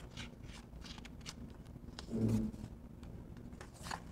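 Quiet handling of a paperboard picture book: faint clicks and paper rustles, with a short low murmur about two seconds in, and a page starting to turn near the end.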